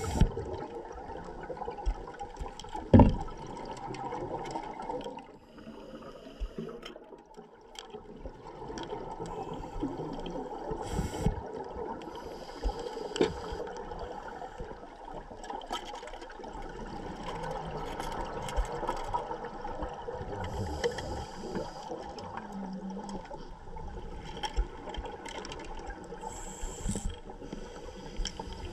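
Underwater ambience as picked up by a dive camera: a steady rushing, watery noise with scattered small clicks and one sharp knock about three seconds in.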